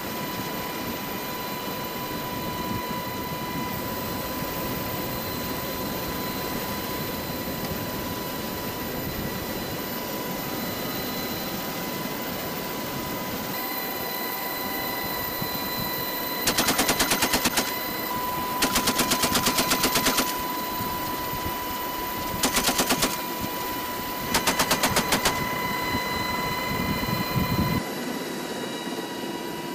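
Steady whine and rumble of an HH-60 Pave Hawk helicopter in flight, then, about halfway through, four short bursts of rapid fire from a door-mounted GAU-18 .50-calibre machine gun.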